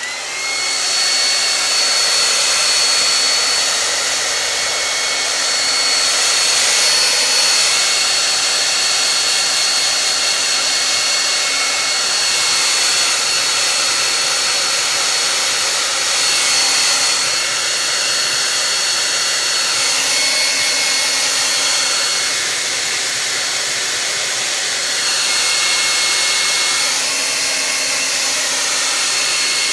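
Hair dryer switched on and blowing steadily: a loud rush of air with a thin high whistle over it, swelling and easing a little as it is moved about.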